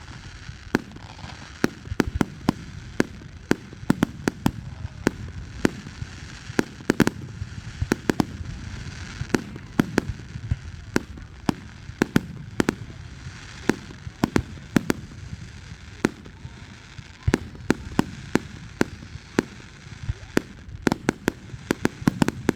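Fireworks going off in a continuous barrage of sharp bangs and pops, several a second at irregular intervals.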